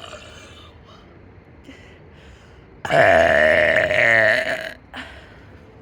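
One long, loud burp lasting nearly two seconds, starting about three seconds in, with a wavering pitch.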